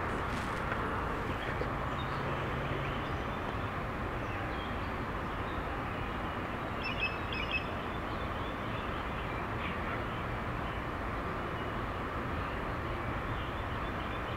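Steady outdoor background noise with no one speaking, and a few faint bird chirps about seven seconds in.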